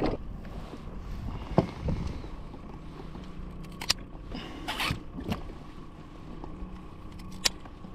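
Scattered sharp clicks and light knocks with some scraping on a plastic kayak as a freshly killed catfish and gear are handled, over a low steady hum.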